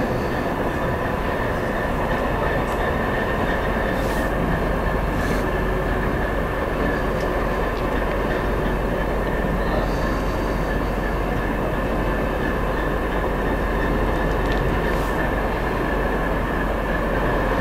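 Soviet-built 'Ludmilla' diesel locomotive running as it moves slowly through the yard: a steady engine drone with a constant whine over it, and a few faint clicks from the wheels.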